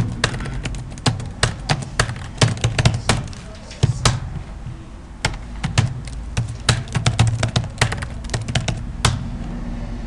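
Computer keyboard typing in quick, irregular runs of key clicks, which thin out briefly about four seconds in, over a low steady hum.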